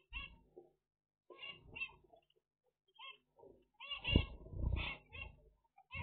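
Zebra finches calling: short, nasal beeping calls in quick clusters, several birds at once. A couple of soft thumps come about four and five seconds in.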